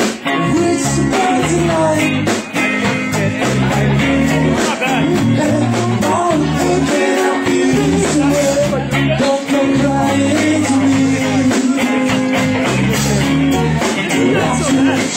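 Live rock band playing loudly and continuously, with electric guitar lines over a moving bass line and a steady drum beat.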